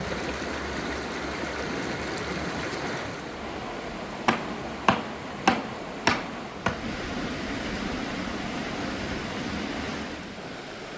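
A river rushing steadily, with five sharp knocks in a row about two-thirds of a second apart, roughly midway through.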